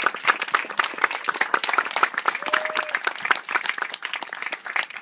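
Audience applauding, many hands clapping, the clapping thinning out over the last second or two.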